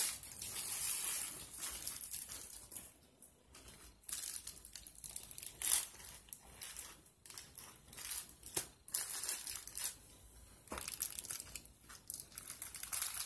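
A crinkly gold foil hair cap rustling and crackling in irregular bursts as hands press and tuck it into place over the hair, with a few short pauses.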